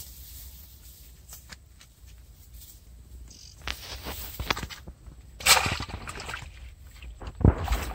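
Rustling and brushing as a nylon net is handled in dry grass, with a loud scrape about five and a half seconds in and a low thump near the end.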